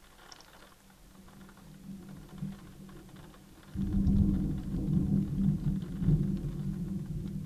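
Thunder: a heavy low rumble that breaks in suddenly about four seconds in and rolls on, after a fainter swell a couple of seconds earlier.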